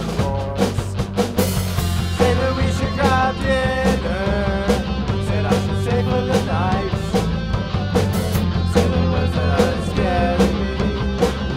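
Rock band playing live: electric guitar, electric bass, drum kit and keyboard together over a steady beat, with a melodic line that bends and slides in pitch above the mix.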